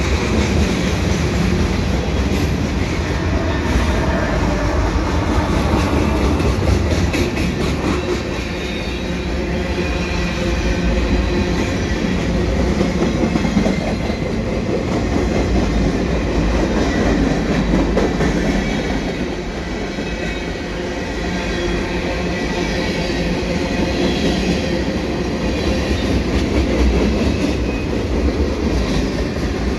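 Freight train cars rolling past at close range: a steady rumble of steel wheels on rail, with clicks as the wheels pass over rail joints.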